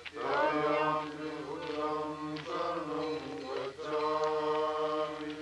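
Deep male chanting in long held notes that step between pitches, with short breaks between phrases.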